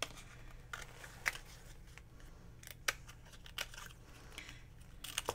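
Scissors cutting a dried acrylic paint skin: a few faint, sparse snips and clicks.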